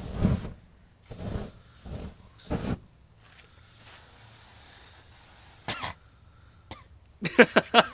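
Short bursts of a hand-held flame jet: a longer one at the start, then three brief ones in the next three seconds. Near the end someone laughs in quick pulses.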